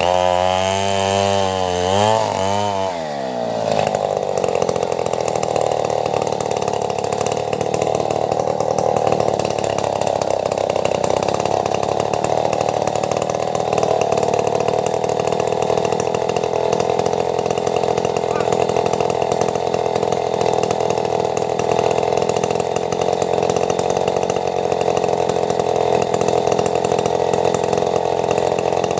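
Chainsaw engine revving up and down for the first three seconds or so. It then runs steadily under load, cutting lengthwise through timber to make planks.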